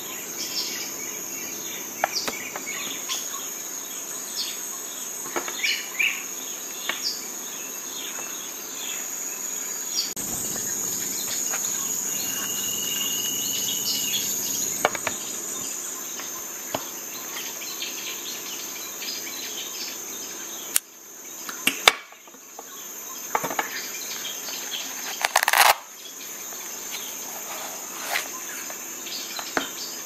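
Crickets chirring steadily at a high pitch, with scattered short clicks and taps throughout and a louder sharp knock a few seconds before the end.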